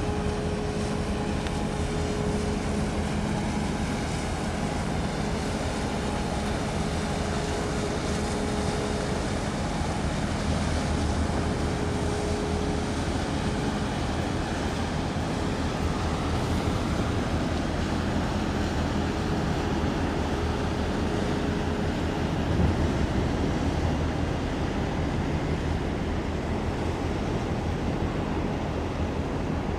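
Steady low engine drone from the passing cape-size bulk carrier and the small pilot boat beside it, with a humming tone that fades in and out, over a haze of wind and water noise.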